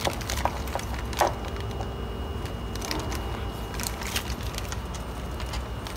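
Thin plastic bag crinkling and crackling in irregular bursts as a bundle of wires and plastic connectors is pushed into it by hand.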